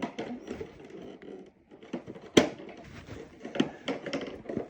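Hard plastic clicks and knocks from a toy toolbox being tugged at and handled while its stiff drawer is pulled; one sharp knock about halfway through is the loudest, with a few smaller clicks after it.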